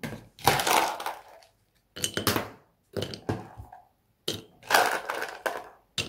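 Crushed ice spooned into a ceramic mug, crunching and clinking against the cup in about four short bursts with pauses between them.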